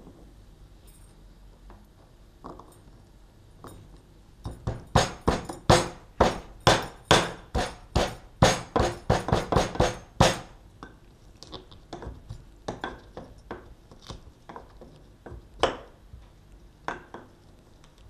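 Garlic cloves being pounded to crush them: a quick run of sharp knocks, about three a second, lasting some six seconds, then a few scattered lighter knocks.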